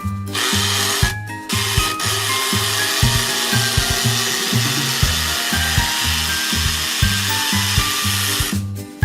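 Small battery-powered motor of a toy kitchen appliance whirring. It runs briefly, stops for a moment about a second in, then runs steadily again until it cuts off near the end, over children's background music.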